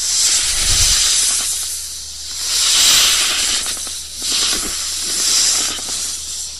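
Snake hissing: three long, breathy hisses, each swelling and fading, about two seconds apart.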